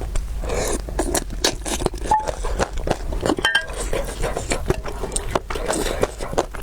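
A person eating spicy noodle soup close to the microphone: chewing and slurping, with many short clicks and scrapes.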